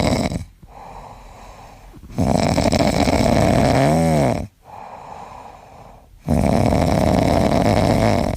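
A sleeping pet snoring loudly: three long, rough snores about every four seconds with quieter breaths between them. The middle snore ends in a short rising-and-falling squeak.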